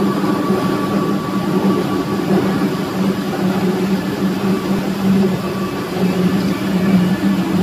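Rice mill plant machinery running: a loud, steady drone of electric motors, blower fans and elevators, with a low hum and a higher whine on top.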